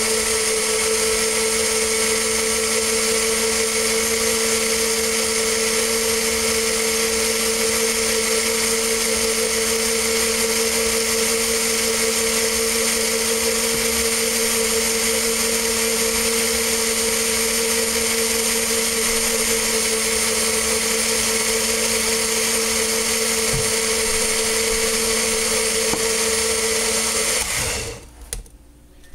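Single-serve personal blender running steadily at an even pitch, blending a liquid fruit smoothie. The motor cuts off suddenly near the end.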